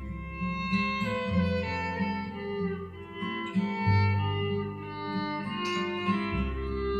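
Instrumental music: plucked acoustic guitar and bowed strings over long held bass notes that change every second or two.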